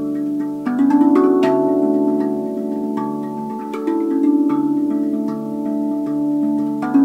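RAV Vast steel tongue drum, tuned to D major, played with the fingers: single struck notes ring on and overlap in a slow melody, a new note every half second to a second.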